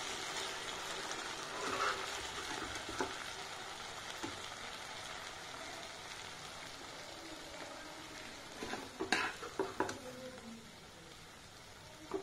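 Honey-chilli sauce sizzling and bubbling around the potatoes in a hot non-stick wok, slowly getting quieter. A metal slotted spoon scrapes and clinks against the pan a few times, most clearly in a short cluster about nine seconds in.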